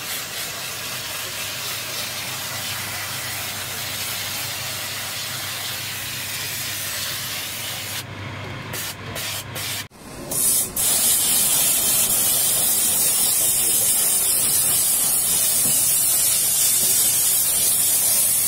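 Handheld steam nozzle of a Scarpavapor shoe steam-cleaning station hissing as it jets steam onto a shoe. The hiss breaks off in a few short gaps a little after eight seconds in, then comes back about ten seconds in as a much louder, high, sharp hiss.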